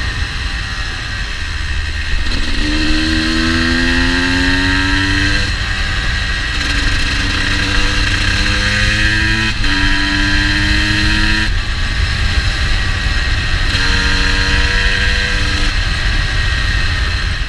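GasGas EC 250 two-stroke motorcycle engine pulling hard several times, its pitch climbing and then breaking off at each shift or roll-off, over steady wind and road rumble. The owner says the bike is running a little rich.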